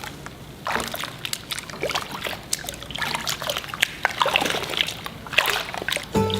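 Water splashing and sloshing in a bath, in irregular splashes, as a Labrador puppy is bathed. Music begins right at the end.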